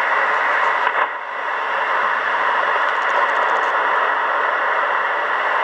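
Steady hiss and static from a Kenwood R-2000 shortwave communications receiver's speaker, tuned to an amateur net between transmissions, with no readable signal. The hiss dips briefly about a second in.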